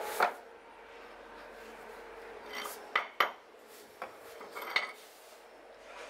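A microwave oven transformer set down on a wooden bench with a knock, then a steel screwdriver clinking and scraping against the transformer's steel core as it is pried at. There is a short scrape and two sharp metallic clinks about three seconds in, and a few more clinks near the end.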